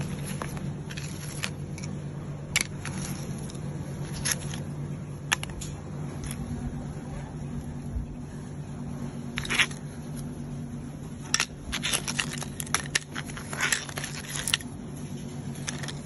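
Dry cuttlebones clicking and scraping against each other and the plastic crate as they are handled: scattered light clicks, coming thick and fast in the last few seconds, over a steady low hum.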